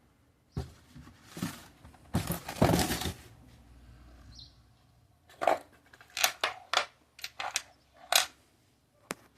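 Small objects being handled: a rustle about two seconds in, then a quick run of sharp clicks and knocks.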